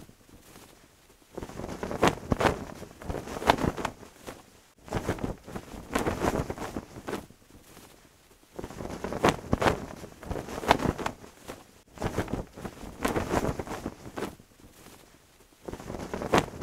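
Cloth flag flapping and snapping in the wind, in gusty spells every three to four seconds with short lulls between.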